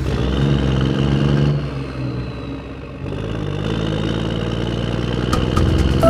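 An engine-like motor sound running steadily, dipping in loudness a couple of seconds in and picking up again, with a few sharp clicks near the end.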